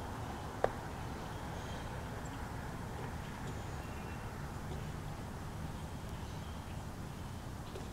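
Outdoor woodland ambience: a steady low rumble with a soft even hiss, broken by one sharp click about half a second in, and a few faint high chirps.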